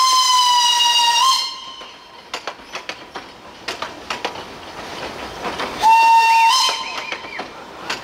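Narrow-gauge steam locomotive's whistle blowing one long steady blast that cuts off about a second in, then a second short blast near the six-second mark. Between the blasts the train gives irregular clanks and knocks.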